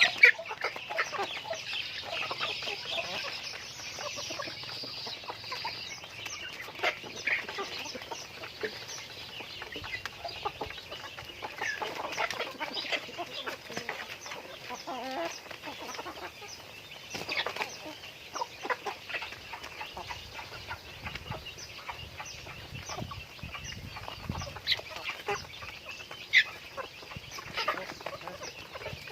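A flock of chickens clucking, with many short calls and sharp clicks scattered throughout and a few louder calls standing out.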